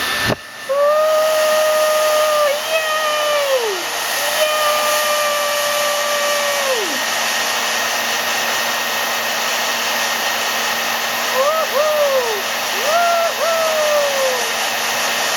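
Hair dryer on its cool setting blowing steadily, briefly dropping out about half a second in. Over the blowing come whistle-like tones: two long held ones in the first half, then two pairs of short rising-and-falling ones near the end.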